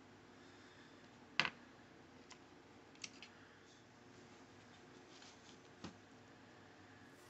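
A few scattered sharp clicks and light knocks from small hard objects, one louder knock about a second and a half in, over a faint steady hum.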